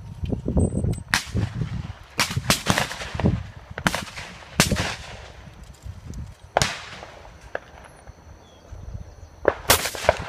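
Shotgun shots, about a dozen, irregularly spaced and of varying loudness, with a quieter gap about two-thirds of the way through before a quick cluster near the end.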